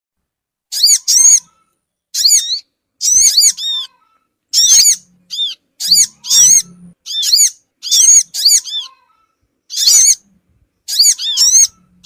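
Olive-backed sunbird (sogon) calls: short bursts of rapid, high, sharp chirps, each note rising and falling, about one burst a second with silent gaps between. It is a lure recording played to draw sunbirds in.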